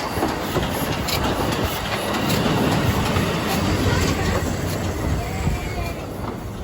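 A narrow-gauge heritage train running on the rails, with clicks from the wheels. The noise swells through the middle and eases off near the end.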